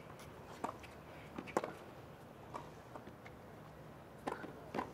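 A tennis rally on a hard court: about half a dozen sharp pops, roughly a second apart, as rackets strike the ball and it bounces.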